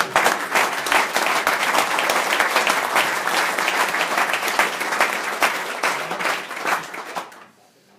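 Audience applauding loudly, a dense clatter of many hands clapping that dies away about seven seconds in.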